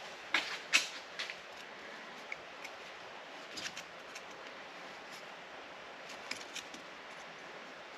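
Small metal clicks and taps of a hand tool working at a rusted cotter pin: a few sharp clicks in the first second, then scattered lighter ticks.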